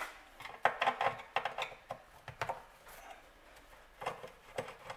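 Scattered light clicks and knocks of hands working at a pressure washer's plastic engine shroud to take it off, most in a quick run in the first two seconds and a few more near the end.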